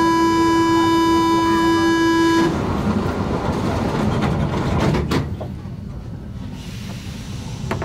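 Paris Metro MP05 train's door-closing warning tone: a loud, steady buzzing tone that stops about two and a half seconds in. The train's rumble carries on, with a few sharp clunks about five seconds in.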